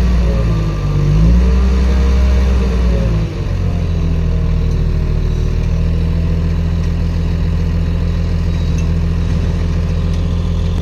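Engine running, its speed wavering over the first three seconds, then changing abruptly and settling into a steady, even run for the rest.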